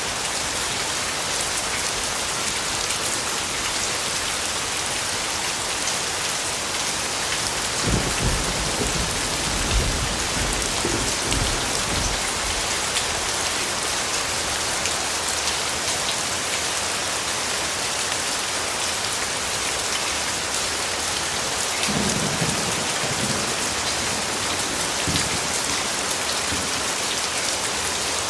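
Steady rain falling and pattering on surfaces, a dense even hiss of drops. Two low rumbles of thunder roll under it, one about a third of the way in lasting a few seconds, and a shorter one about three-quarters of the way in.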